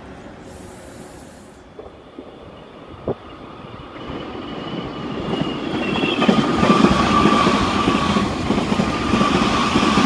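Meitetsu 5700 series electric train running into the station. Wheel and rail noise builds from about four seconds in and is loud over the last four seconds, with a high whine slowly falling in pitch as the train slows.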